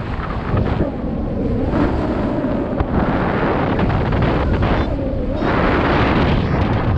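Wind buffeting the camera microphone: a loud, uneven rumble that gusts up and down.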